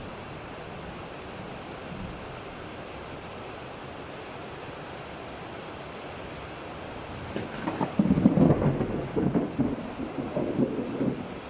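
Steady rain hiss, then about seven seconds in a thunderclap that breaks loud and crackling and keeps rolling on in uneven waves.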